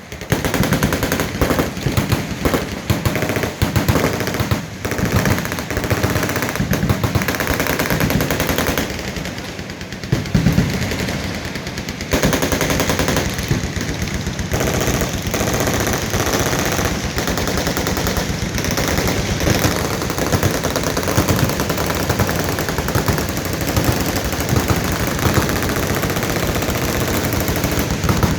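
Many machine guns firing at once along a shooting line, with overlapping bursts and long strings of automatic fire. The fire thins briefly about a third of the way through, then becomes an almost unbroken rattle.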